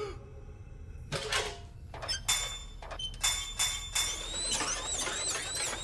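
Sci-fi cartoon sound effects of a mechanical probe arm: a series of sharp clicks and clanks as the tool unfolds its blades, then from about four and a half seconds a repeating rising electronic whine, about three a second, as the tool powers up.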